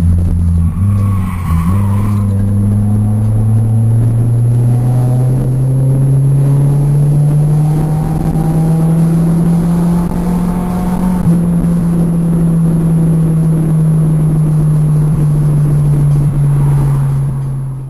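Car engine held at high revs, loud and sustained. After a brief dip about a second in, its pitch climbs slowly and then holds steady, and it cuts off suddenly at the end.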